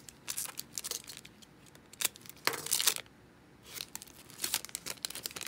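A trading-card pack wrapper being torn open and crinkled by hand, in three irregular spells of crackling.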